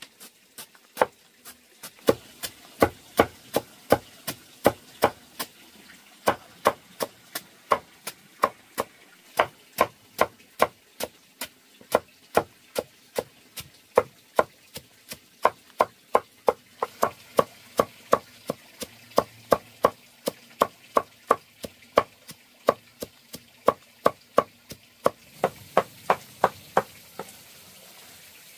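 Long knife chopping banana stem on a wooden board, with sharp, evenly paced chops about two to three a second that stop near the end.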